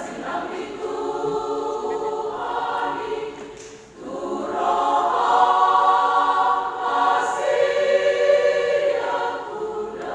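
Church choir singing sustained chords, breaking briefly about four seconds in before a louder phrase.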